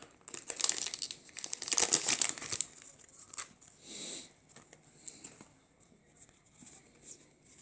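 Foil trading-card booster pack wrapper crinkling and being torn open, loudest in the first two and a half seconds, with a short tearing hiss about four seconds in, then faint handling clicks of the cards.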